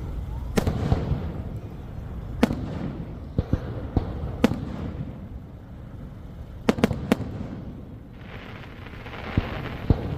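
Fireworks bursting: a run of sharp, irregular bangs, several close together around the middle, with a hissing crackle near the end.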